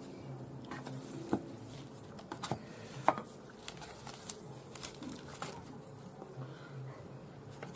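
Hands kneading raw minced pork shoulder in a bowl: quiet, irregular wet squishes and soft slaps of the meat, with a few sharper clicks.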